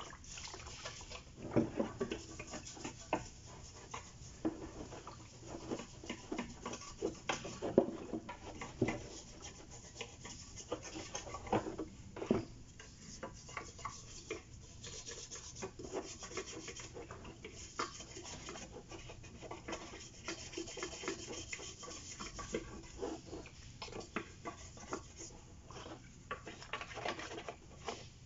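Hand-scrubbing a carbon-fouled EGR valve from a Fiat Ducato: irregular rubbing and scraping strokes, with sharp clicks and knocks of the metal valve body throughout.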